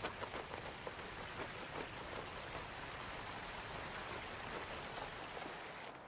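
Steady patter of falling water: many small drops and splashes over an even hiss.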